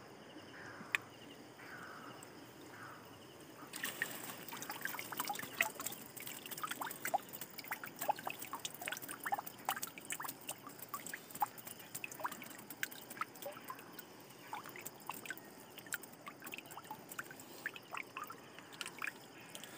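Water trickling and dripping off a fishing net trap as it is lifted out of a river, the drips growing much busier about four seconds in.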